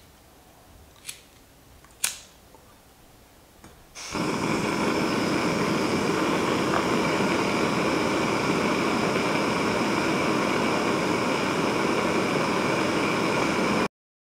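Two sharp clicks at a gas canister stove, then about four seconds in the burner lights and runs with a steady gas-flame hiss under the pot, stopping abruptly just before the end.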